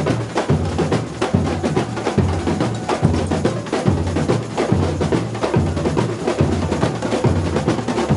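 A samba bateria playing a samba beat: surdo bass drums struck with mallets thud about twice a second under a dense, fast rattle of snare drums and other hand percussion.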